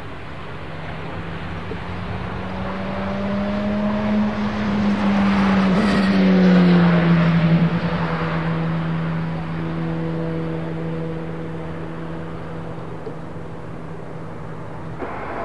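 A Boeing 737 freighter's jet engines roaring through its landing roll. The noise swells to a peak about six seconds in and then fades, while a steady engine hum drops in pitch as the sound passes.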